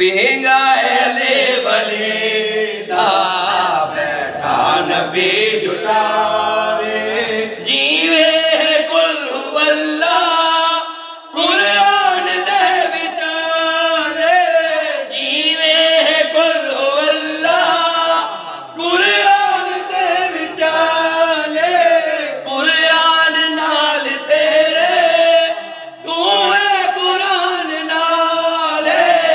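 Male voices chanting a devotional poem into a microphone, a lead singer with others joining, in sung phrases a few seconds long with short breaks between.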